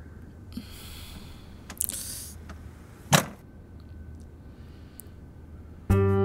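Wooden door being handled: a rustle and small clicks, then one sharp metallic click from its bolt or latch about three seconds in. Film score music comes in loudly near the end.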